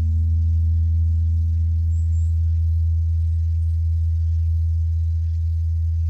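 Large Korean bronze temple bell (beomjong) ringing on after a strike: a deep, steady hum, with a higher overtone fading away in the first few seconds.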